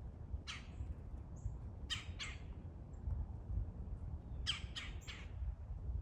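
Red-bellied woodpecker giving short, harsh calls in a territorial squabble: one, then a quick pair, then a run of three.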